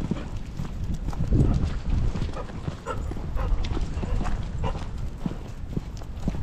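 Steady walking footsteps on a gravel path, with wind rumbling on the microphone.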